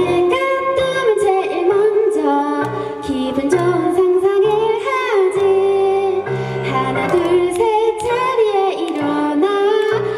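Female voice singing a gentle pop melody live, over instrumental accompaniment with a repeating bass line.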